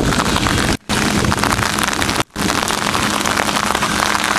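Steady heavy rain pattering on an umbrella and the ground. The sound cuts out briefly twice, about a second in and about two seconds in.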